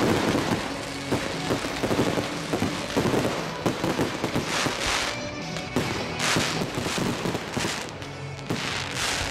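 Fireworks display: aerial shells bursting with repeated bangs and crackling, with music playing underneath.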